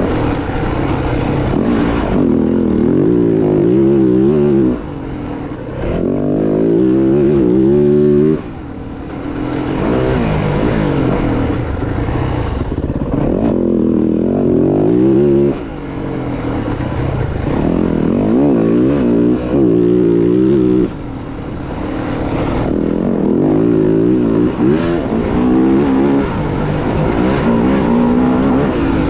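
Dirt bike engine under riding, its note repeatedly climbing under throttle and falling back, with the throttle shut off sharply about four times.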